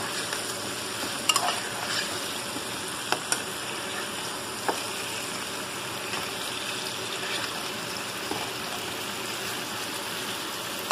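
Chicken pieces sizzling in oil in a nonstick frying pan while a spatula stirs and turns them so they don't stick to the bottom, with a few sharp knocks of the spatula against the pan.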